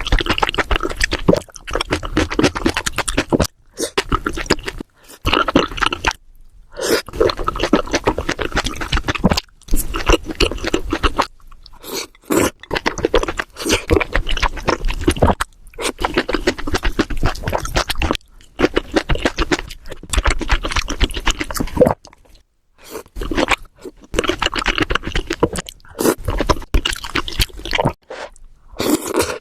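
Close-miked eating sounds: chewing with crunchy, wet bites, in a string of short stretches that break off abruptly into brief silences several times.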